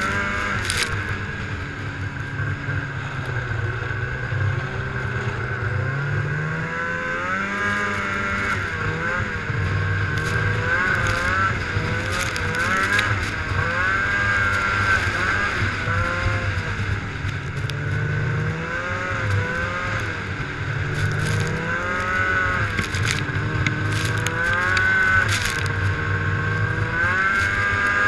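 Ski-Doo snowmobile engine running under way, its pitch rising and falling again and again as the throttle is worked, over a steady noisy rumble.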